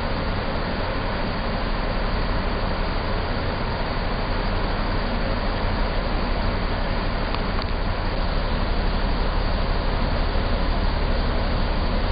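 Bulk carrier's deck crane machinery running with a steady rumble and hiss as the crane slews its clamshell grab over the hold.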